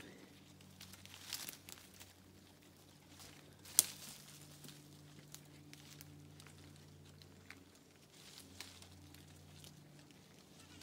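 Goats' hooves scuffling and crackling through dry leaf litter and twigs on a forest floor, in scattered short clicks, with one sharp knock or snap about four seconds in.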